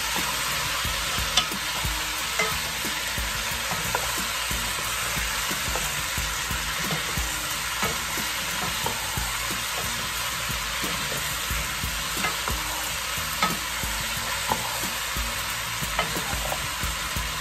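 Chopped vegetables sizzling in a pot while a wooden spoon stirs them, scraping and knocking against the pot now and then.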